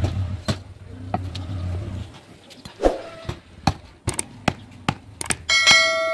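Butcher's cleaver chopping beef on a wooden log block: a dozen or so sharp, irregular chops. A low engine rumble stops about two seconds in, and a brief bright ringing tone sounds near the end.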